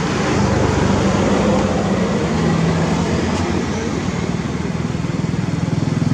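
An engine running steadily with a low pulsing hum, growing louder near the end.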